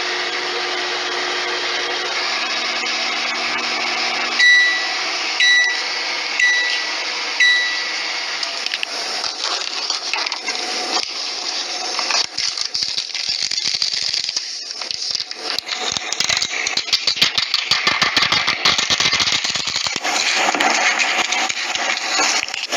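Microwave oven running with a steady hum that stops about four seconds in, followed by four high beeps about a second apart, the end-of-cycle signal. Then irregular clicks and crinkling and rustling, as the cooked instant-noodle container is handled.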